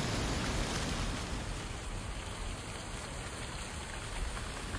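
Wind blowing through trees, rustling dry autumn leaves in a steady hiss that eases a little about a second in.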